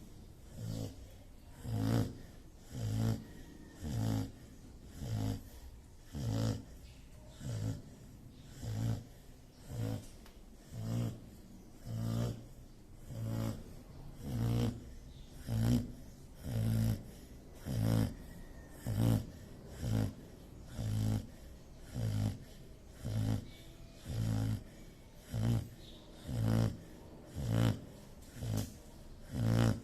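Sleeping dog snoring in a steady rhythm, about one low snore a second.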